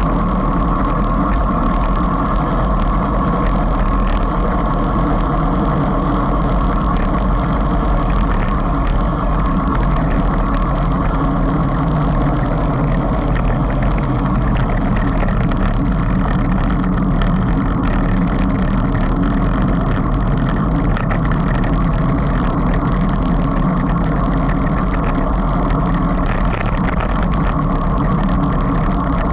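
Steady rush of wind buffeting the microphone of a camera on a bicycle moving at around 26 to 43 km/h, mixed with road noise.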